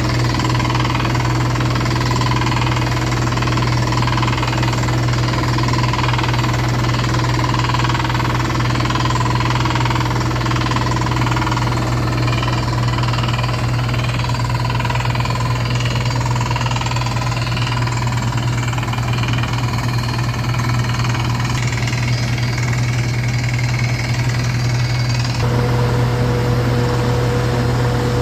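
Epiroc ROC D40 crawler drill rig running under load, its top-hammer rock drill hammering rapidly and steadily into rock over a constant low engine hum. A steady tone joins about 25 seconds in.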